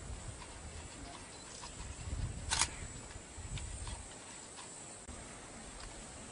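Leopard at a carcass among dry twigs and grass: low rumbling sounds for about the first four seconds, then quieter, with one sharp crackle about two and a half seconds in.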